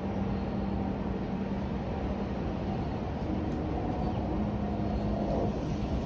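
Gusty wind rushing against the microphone, with a steady low mechanical hum underneath; a second, higher hum joins about three seconds in.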